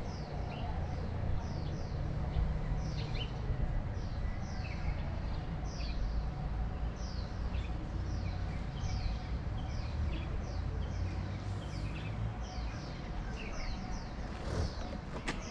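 Small birds chirping over and over, short downward-sliding chirps several times a second, over a low steady rumble.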